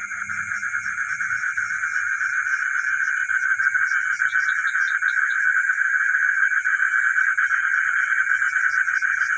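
Night chorus of many frogs calling together as a dense, steady, pulsing din, over a continuous high-pitched insect-like trill. About four seconds in, a short quick series of higher chirps stands out.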